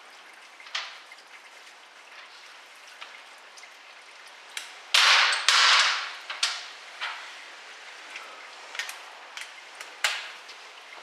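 Automatic transmission fluid dripping from the ZF 6HP26 drain hole into a catch pan: the last of the drain, in single sharp drips a second or so apart over a steady trickle. Two louder rushing bursts come about five seconds in.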